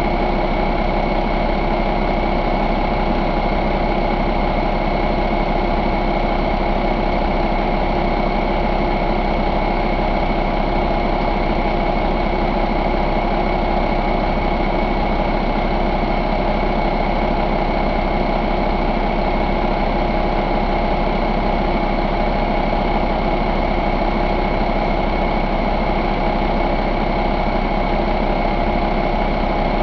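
2013 Cummins ISX15 inline-six diesel engine idling steadily, a low pulsing rumble with a steady whine over it.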